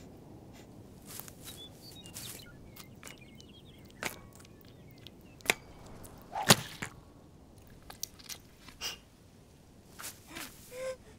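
Cartoon sound effects: small nibbling and rustling clicks in grass, then a quick whoosh and a sharp thud about six and a half seconds in as a metal hiking pole drops onto a marmot and impales it. A couple of short squeaks come near the end, over a soft outdoor background.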